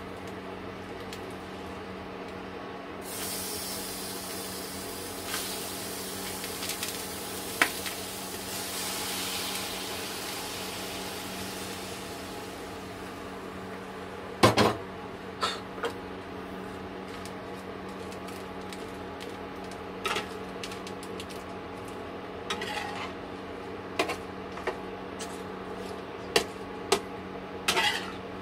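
Whole raw shrimp dropping into hot oil in a frying pan, sizzling and hissing for several seconds before the hiss dies down. About halfway through comes a single loud clank, and near the end a metal spatula clinks against the pan several times as the shrimp are stirred. A steady hum runs underneath.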